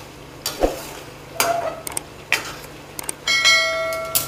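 A perforated steel ladle scraping and knocking in a stainless steel kadai of thick mutton fry, about four strokes roughly a second apart. Near the end a bell-like ringing tone sounds for about a second, followed by a sharp metal knock.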